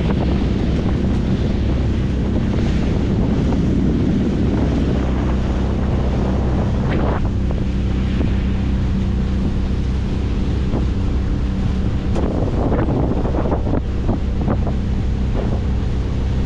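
25 hp Mercury four-stroke outboard motor running at a steady speed while under way, with wind noise on the microphone and water rushing past, and a few short gusts or splashes about seven seconds in and again near the end.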